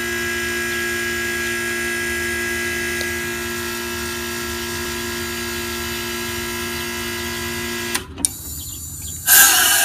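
Air-conditioner condenser compressor humming steadily on mains power, a fixed electrical drone with several pitches, which cuts off suddenly about eight seconds in. A loud burst of rushing noise follows near the end.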